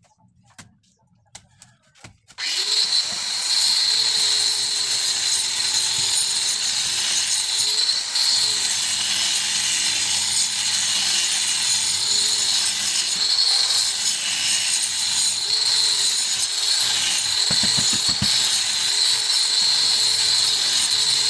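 A handheld power tool cutting into a concrete hollow-block wall for the wiring. It starts about two seconds in and runs on as a loud, steady, high-pitched noise.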